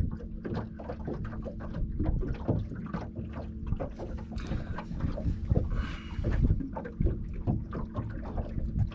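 Electric trolling motor humming steadily as a small boat creeps along at walking pace, with many small knocks and slaps of water against the hull and a short hiss about six seconds in.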